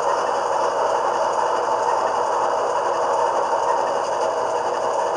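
Sound decoder of an HO scale Athearn GE Dash 9-44CW model diesel locomotive playing a steady diesel engine sound through the model's small onboard speaker.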